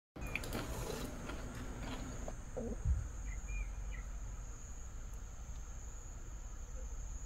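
Insects trilling steadily at a high pitch in a garden at dusk, with a few short high chirps and a low thump about three seconds in.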